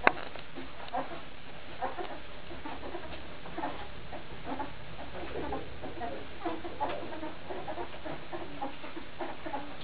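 A litter of Labrador retriever puppies squeaking as they nurse: a busy, overlapping chatter of short, high squeaks, several a second.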